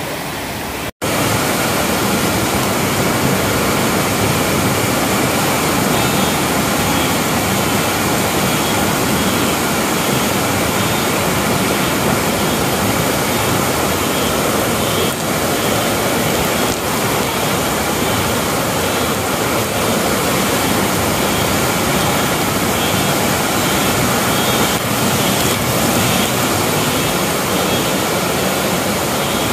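Fast-flowing floodwater rushing through a street, a steady loud rush of water. It briefly cuts out about a second in and comes back a little louder.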